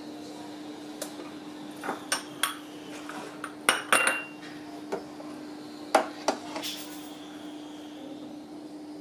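Glass dessert cups clinking as they are handled and set down on a stone countertop, along with a metal ladle knocking against a steel pot: a scattering of sharp clinks, the loudest about four seconds in with a brief glassy ring. A steady low hum sits underneath.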